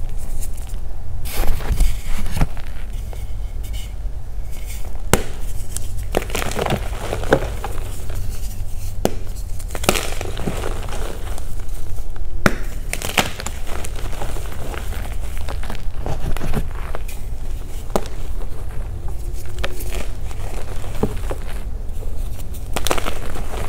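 Hands crushing and crumbling reformed gym chalk blocks: irregular crunching and crackling as the chalk breaks apart into powder.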